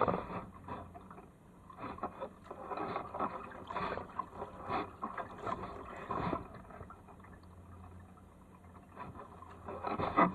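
Double-bladed kayak paddle dipping and pulling through calm water in an uneven run of strokes, with small splashes and drips off the blades. It goes quieter for a couple of seconds near the end, then the strokes pick up again.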